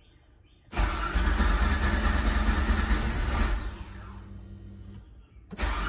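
DeLorean DMC-12's PRV 2.85-litre V6 engine starting up and running. It comes in suddenly about a second in, drops to a lower level past the halfway point, cuts out briefly near the end and comes back loud.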